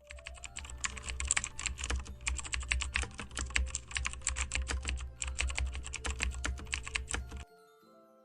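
Rapid computer-keyboard typing clicks over a steady low hum, stopping suddenly about seven and a half seconds in; a few faint held tones follow.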